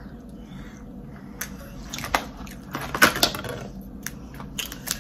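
Eating sounds of seafood boil with crab legs: irregular sharp clicks, cracks and mouth smacks, the loudest cluster about three seconds in.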